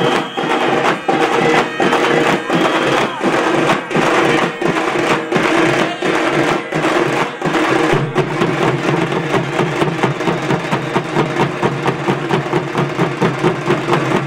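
A troupe of dappu frame drums playing together, loud and rhythmic. The beat is slow and heavily accented at first, about one and a half strokes a second, and about eight seconds in it turns into a fast, even rhythm of several strokes a second.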